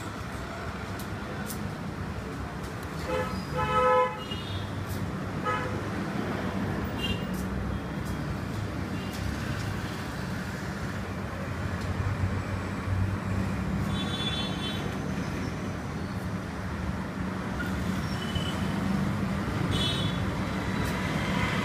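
Steady low background rumble with short vehicle horn toots, the loudest about four seconds in and weaker ones around fourteen and twenty seconds in.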